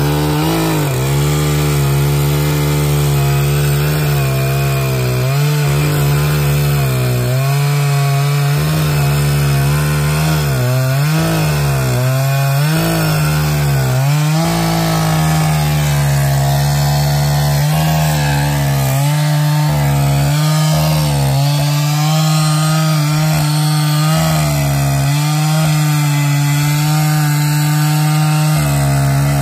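Chainsaw cutting into a large tree trunk. The engine runs hard with its pitch sagging and recovering several times as the chain loads in the wood, most strongly about halfway through, then holding steady.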